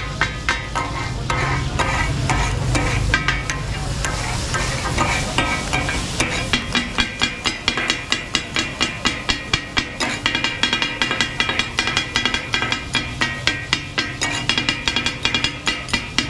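Two metal spatula blades chopping and scraping on a hot flat iron griddle (katakat), a steady clatter of about four strikes a second that becomes more regular from about six seconds in. It runs over the sizzle of goat brain and kidney frying in butter masala.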